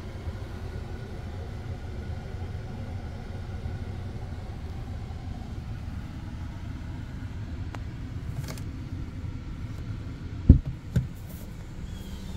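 A car's steady low rumble, with a few faint clicks and then two heavy thumps about half a second apart near the end.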